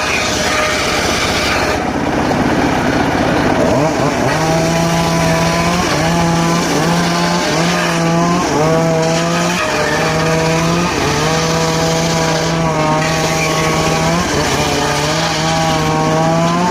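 Circular saw running and cutting teak wood: a loud, steady machine noise, joined about four seconds in by a humming tone that breaks off and resumes every second or so.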